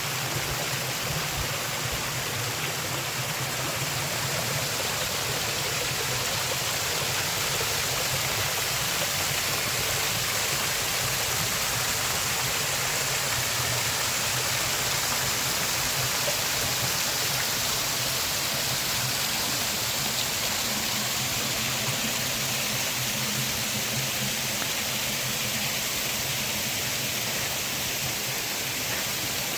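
Creek water running down a cascade: a steady rushing.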